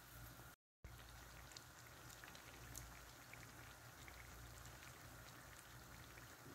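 Faint sizzle of hot oil around dough buns frying in a pan, with scattered tiny crackles. The sound drops out completely for a moment about half a second in.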